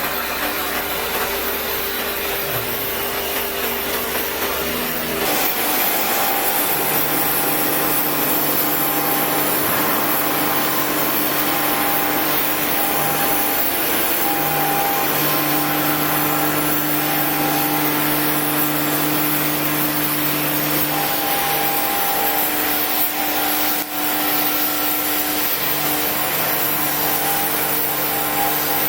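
Oxy-fuel flame-cutting torch cutting 20 mm steel plate: a steady hiss and rush of gas and flame, with steady machine hum tones under it. The sound changes and gets slightly louder about five seconds in.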